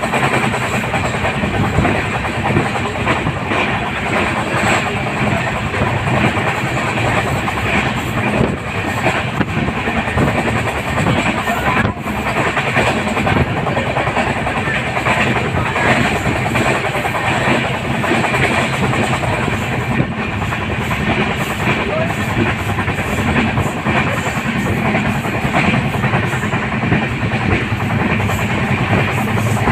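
Indian Railways passenger train running along the track, heard from beside an open door or window of one of its coaches: a steady, loud din of wheels on the rails and the rattle of the carriages.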